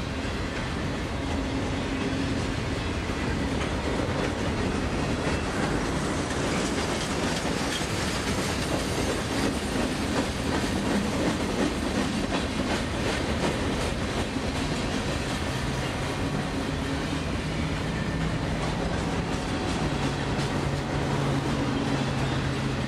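Union Pacific freight train's boxcars rolling past, a steady rumble of steel wheels running on the rails.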